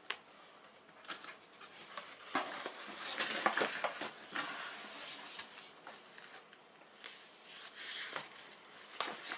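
Small plastic vacuum accessories and their packaging being handled and unpacked: irregular rustling with light clicks and clatters, busiest a few seconds in.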